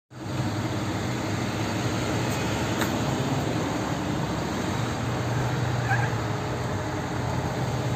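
Steady city street noise with a constant low hum, as of traffic or a machine running nearby. A faint short high sound about six seconds in.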